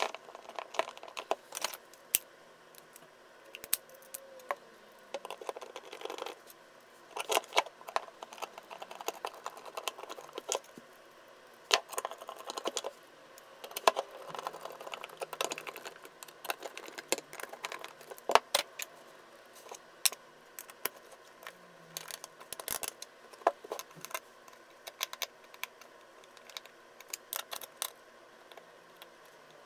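Scattered small clicks, taps and light metallic rattles from a fuzz pedal being reassembled by hand: its bottom plate fitted and the plate's screws driven in with a hand screwdriver.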